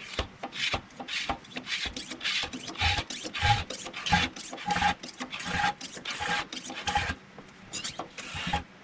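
Hand-operated fluid transfer pump being worked stroke after stroke, a rasping, squeaky plunger sound about one and a half strokes a second, with a short pause near the end. It is pumping oil into the rear differential and drawing a fair bit of air with it.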